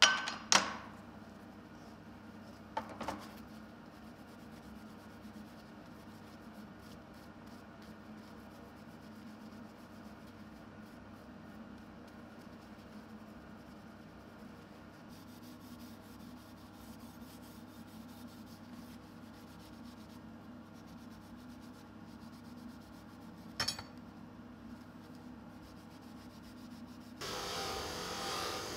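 Faint rubbing over a steady low shop hum, with a few sharp knocks of a stick against a small tin can near the start and once more later. Near the end a bench grinder runs as a small metal piece is held to its wheel.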